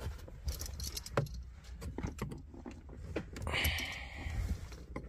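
Trim removal tool prying at a car's dashboard trim panel: scattered light clicks and ticks of the clips and plastic, with a brief scrape about three and a half seconds in.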